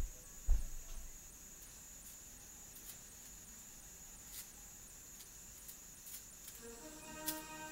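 Quiet room tone with a steady high-pitched electronic whine and faint ticks, two low thumps in the first second, and soft music fading in near the end.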